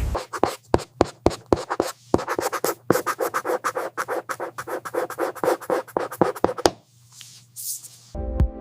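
Quick, repeated scratching strokes of a tool on a surface, several a second, stopping about seven seconds in. A short hiss follows, and music begins near the end.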